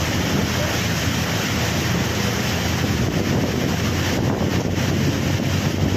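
Steady rush of floodwater churning and splashing around a bus as it wades through a flooded street, with wind buffeting the microphone.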